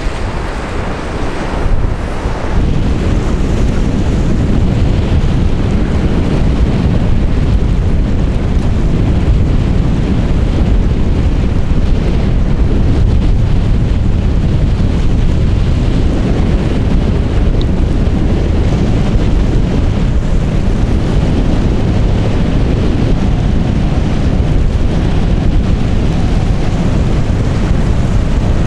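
Wind buffeting the microphone: a steady, loud low rumble with a rushing hiss, slightly quieter for the first couple of seconds.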